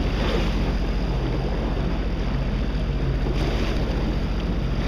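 Sea-Doo jet ski engine running steadily at low speed, a constant low hum under a wash of wind and water noise.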